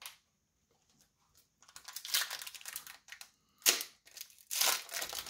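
Foil wrapper of a trading card pack crinkling and tearing as it is ripped open, in irregular rustling bursts that begin a second or two in after a short quiet.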